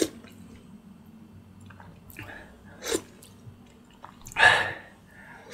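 Close-miked eating of Thai spicy pork bone soup: quiet chewing with a few short mouth and spoon sounds, then one loud sharp breath about four and a half seconds in.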